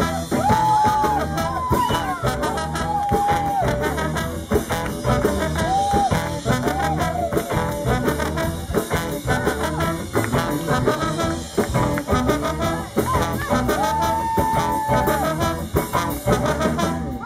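Live band playing an instrumental passage: electric guitar, bass, drums and keyboard over a steady driving beat, with a melody line of held notes that bend in pitch.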